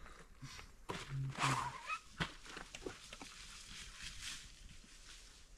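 Coonhounds giving a couple of short barks in the distance about a second in, with light rustling and clicks of handling close by.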